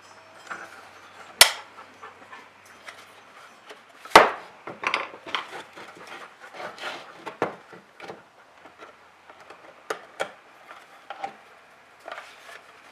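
Hard plastic trim pieces of a truck's overhead console being handled and pried apart: sharp snapping clicks, the loudest about a second and a half in and about four seconds in, then a run of smaller clicks and rubbing, with two more clicks about ten seconds in.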